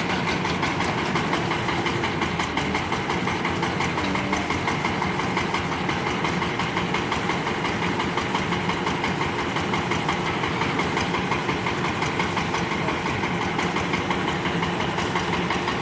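Excavator's diesel engine running steadily with a fast, even knocking pulse.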